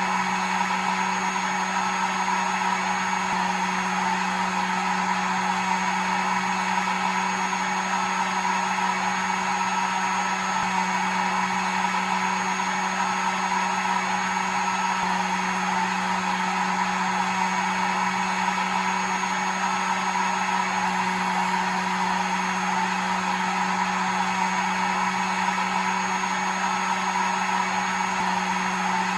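Hair dryer running steadily: an even rush of blown air with a constant low motor hum and a thin high whine, unchanging throughout.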